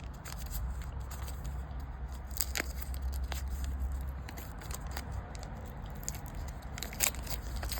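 Foil wrapper of a baseball card pack crinkling and tearing as it is worked open, in scattered sharp crackles, over a low steady hum.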